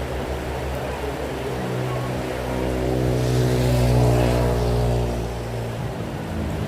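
A motor vehicle passes on a wet road in steady rain: its engine hum and tyre hiss swell to a peak about four seconds in, then fade away.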